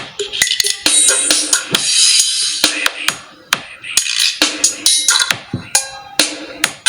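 Drum-heavy music with cymbals and sharp, quick beats played through a Lenovo K3 Pro smartphone's loudspeaker, thin in the bass.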